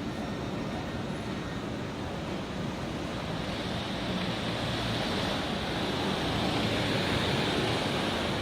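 Steady rushing hiss that grows somewhat louder and brighter about four seconds in.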